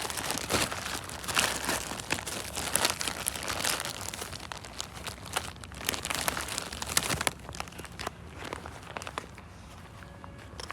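Crinkling, crackling rustle: a dense run of small crackles that thins out and quietens about seven seconds in.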